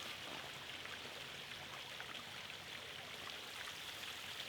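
Steady faint hiss of room tone and recording noise, even throughout with no distinct events.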